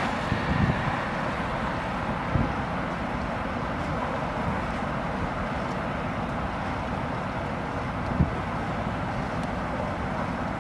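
Steady outdoor ambient noise during a snowfall, a constant even hiss with a few brief low buffets of wind on the microphone, one sharper bump near the end.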